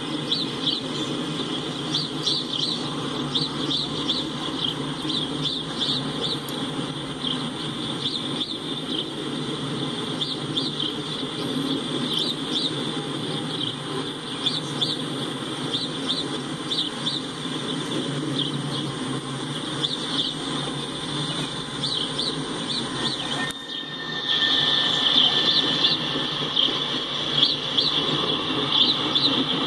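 Norfolk Southern coal train's cars rolling past with a steady rumble, while birds chirp over it again and again. About three-quarters of the way through, the sound briefly drops out, and the bird chirping is louder after that.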